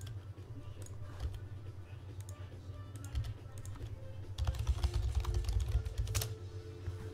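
Scattered light clicks and taps, like keys being typed, over a steady low hum. A louder stretch of knocks and handling noise comes between about four and a half and six seconds in.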